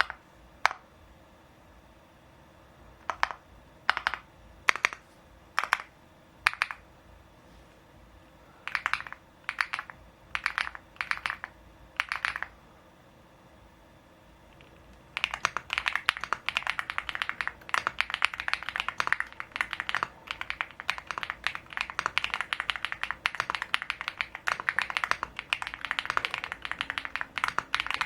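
Typing on a Feker Galaxy80 mechanical keyboard fitted with its stock keycaps: a few single keystrokes spaced out, then short runs of keys, then continuous fast typing from about halfway through.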